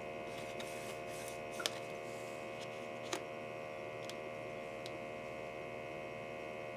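Steady electrical hum, with two soft taps about a second and a half and three seconds in as a tarot card is laid down and the cards are touched on a cloth-covered table.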